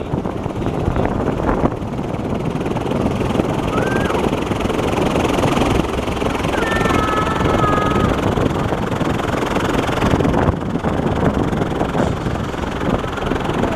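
Steady rushing, rumbling noise on board the Avió airplane ride while it is in motion. A couple of faint, short high squeaks come about a third and halfway through.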